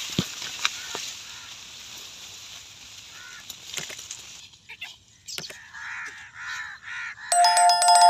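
Leaves rustling close against the microphone, with a few knocks, for the first half. Then a bird gives a rapid run of short, harsh calls. Near the end a loud two-tone bell ding with clicks sounds, a subscribe-button sound effect.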